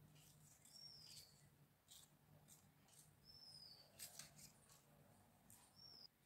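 Near silence: three faint, short, high chirps like a small bird's, each falling slightly in pitch and a couple of seconds apart, over a faint low hum and a few soft clicks.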